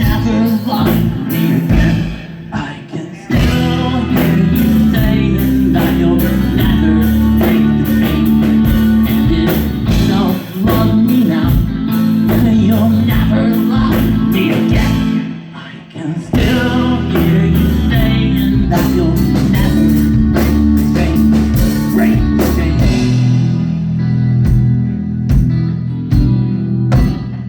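Live rock band playing with electric guitar, bass and a steady beat of sharp hits, with no words sung. The music drops back briefly about two seconds in and again about halfway through.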